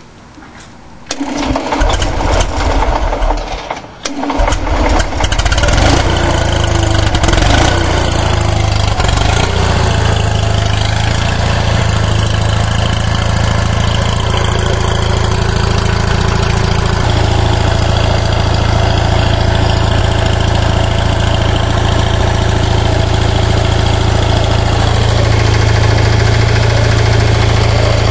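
1987 Onan 4.0 RV GenSet (4000-watt motorhome generator), fitted with an Austin Mini muffler, cold-started: it starts up about a second in, dips briefly near four seconds, then settles into a steady, loud run with a strong low hum.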